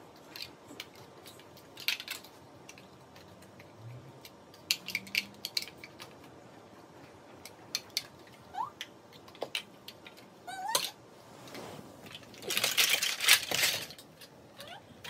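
Large plastic building blocks clicking and clattering as they are handled, with scattered single knocks and a longer, louder clatter near the end as the pile is rummaged through.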